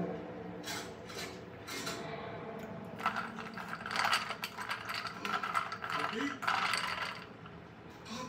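Sipping watermelon juice through a straw from a glass while working the straw around in it. A few single clicks, then a dense crackly run of short bursts from about three seconds in until near the end.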